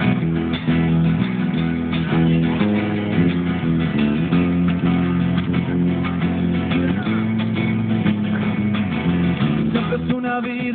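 Live instrumental passage on two guitars: an acoustic guitar strummed alongside a second guitar played through a small amplifier, with sustained low notes under changing chords.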